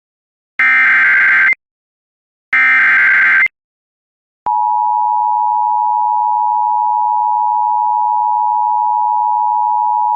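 Emergency Alert System SAME header data: two screechy one-second bursts of digital tones, the last of the three repeats. After a short silence, the steady EAS attention-signal tone comes in about four and a half seconds in and holds.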